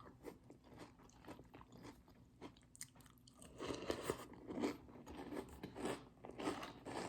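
Close-up chewing of Cap'n Crunch cereal in milk: a quick run of short, crisp crunches, faint at first and louder from about halfway through.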